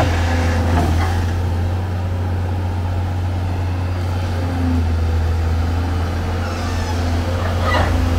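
Amphibious excavator's diesel engine running with a steady deep drone, with a sharp knock near the end.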